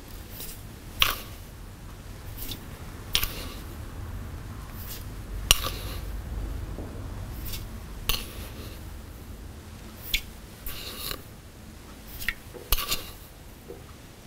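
A metal spoon scooping sugar from a glass jar and tipping it into a Thermomix's steel mixing bowl: repeated sharp clinks of spoon against glass and steel about every two seconds, with the scrape and patter of sugar falling in.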